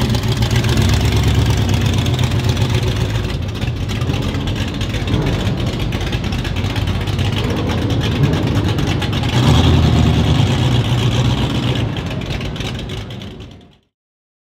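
Performance car engine running and revving: loud at first, easing off for a few seconds, rising again, then fading out and cutting off near the end.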